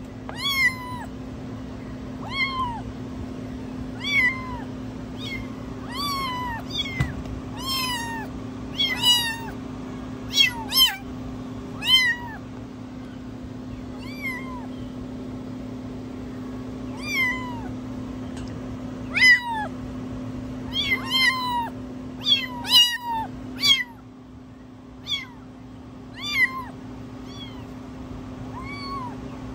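Young kittens meowing: short, high mews, each rising then falling in pitch, repeated about once a second with a few brief pauses. A steady low hum runs underneath.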